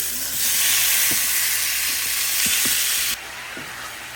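Seasoned chicken frying in a hot pan, a loud steady sizzle that drops suddenly to a quieter sizzle about three seconds in.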